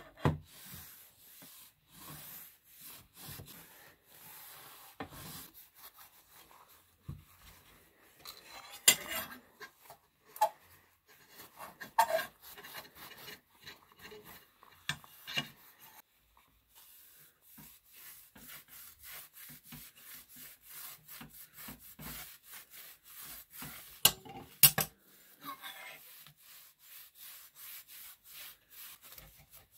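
A cloth being rubbed and scrubbed over the rusty steel blades of old giant scissors, in repeated back-and-forth strokes, with a few sharp clacks of the metal against the stone tabletop. In the second half the strokes become quicker and more even.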